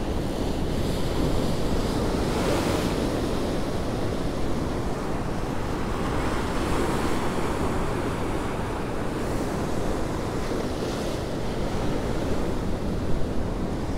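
Rough ocean surf churning and breaking below, swelling and easing every few seconds, with gusty wind rumbling on the microphone.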